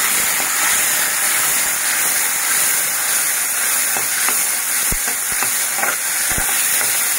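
Chopped tomatoes and green chillies sizzling in hot oil in a kadhai: a loud, steady frying hiss. A few light knocks come in the second half.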